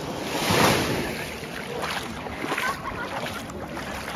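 Sea waves washing, with a swell of water noise about half a second in that then settles.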